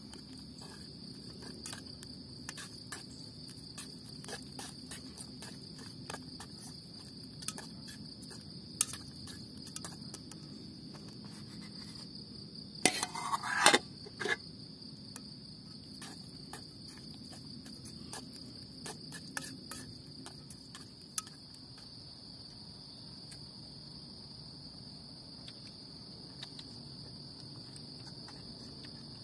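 A steady high chirring of insects, with scattered light clicks of a plastic fork against a camping cookset pot. About halfway through comes a short, louder clatter of the pot and its lid being handled.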